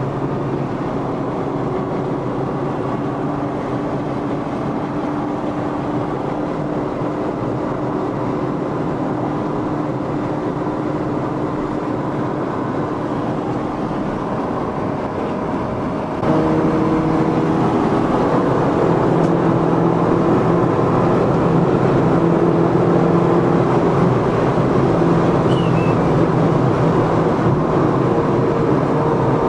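Car engine running steadily through aftermarket Roncar Coyote Quattro 2Way+ switchable exhaust tips. About halfway through, the sound steps up suddenly louder with a different, fuller note and stays there.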